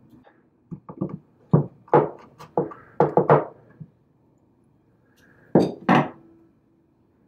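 Sharp clicks and knocks of a small metal hinge and pliers being worked against a wooden jewellery box as the hinge is taken off. There is a quick cluster of about a dozen between one and four seconds in, then two more near six seconds.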